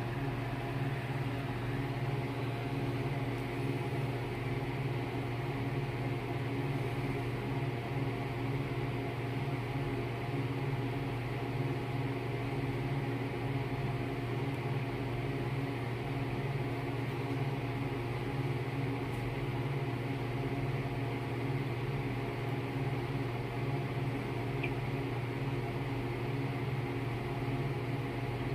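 Steady low mechanical hum with several held tones, like a motor or fan running.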